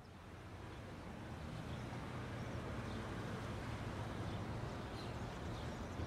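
Steady outdoor background noise with a low rumble, fading in over the first two seconds, with faint short chirps above it.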